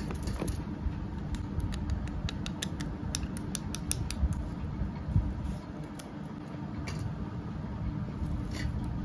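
Small sharp clicks and creaks from a hinged plastic modak mould being handled and opened, a quick run of them in the first half, over a steady low hum.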